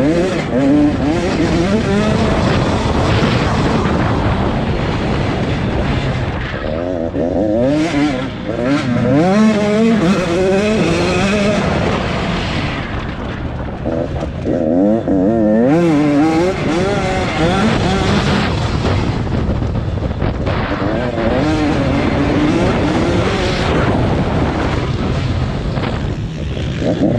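Several racing dirt-bike engines on a velocross track, their pitch rising and falling over and over as the riders accelerate and back off through the turns.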